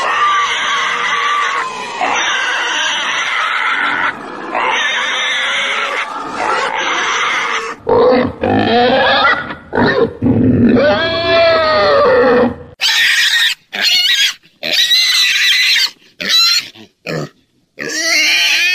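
Pigs squealing: a dense stretch of overlapping squeals for the first several seconds, then separate squeals that rise and fall in pitch, then a run of short, sharp squeals broken by brief pauses in the last few seconds.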